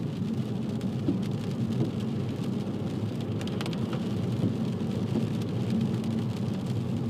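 Car interior noise while driving: steady low engine and road rumble, with tyre hiss on a wet road.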